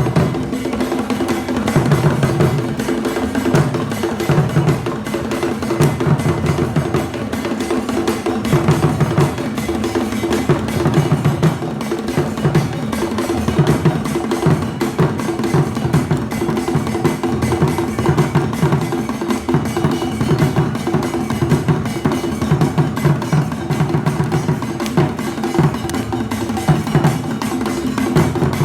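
Akan kete drum ensemble playing a dense, unbroken rhythm of interlocking drum strokes, with deep drum tones sounding repeatedly over it.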